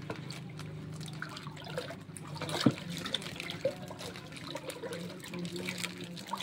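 A plastic bag of liquid being handled and untied: the plastic crinkling and the liquid sloshing inside, with scattered small clicks and one sharper click a little before halfway.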